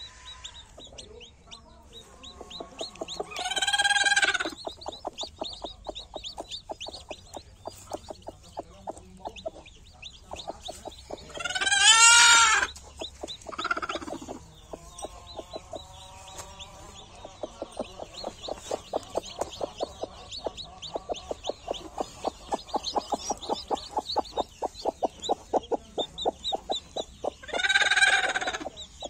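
A hen sitting on her nest clucks in quick, even runs, with chicks peeping faintly and high. Three loud, drawn-out chicken calls stand out: about four seconds in, about twelve seconds in, and near the end.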